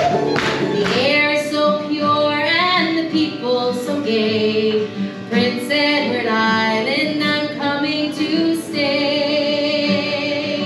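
Live singing with instrumental backing, the voice holding long notes with vibrato. An audience claps in time during the first second.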